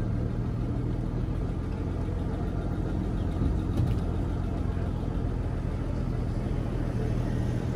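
A vehicle engine idling steadily: a low, even hum that holds one pitch, with no revving.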